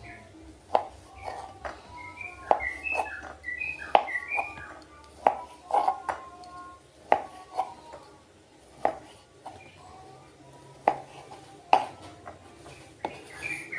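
Kitchen knife slicing through a block of tempeh and knocking on a wooden cutting board, a sharp knock every second or so.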